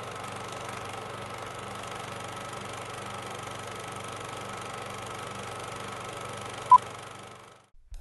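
Old film projector sound effect: a steady running whir with a low hum, a single short beep about seven seconds in as the countdown leader's cue, then it fades out just before the end.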